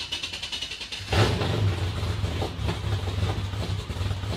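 Car engine sound effect for a channel intro sting: a light rapid rattling for about a second, then a sudden hit and a steady, low engine running sound.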